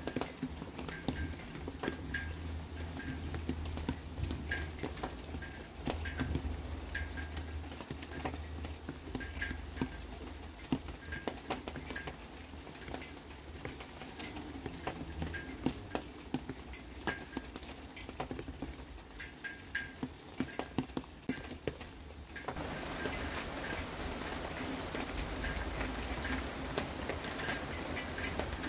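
Rain drips ticking and pattering irregularly on hard surfaces over a low rumble; about 22 seconds in, the steady hiss of falling rain suddenly becomes much louder and holds.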